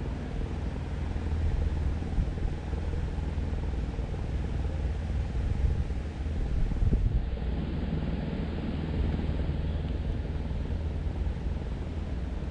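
Wind buffeting the microphone: a steady low rumble with a hiss over it, swelling a little about seven seconds in.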